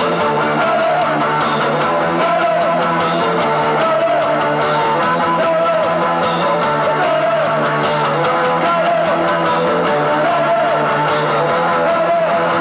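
Punk rock band playing live: electric guitar strumming over bass and drums, with a wavering vocal line repeating in the middle range.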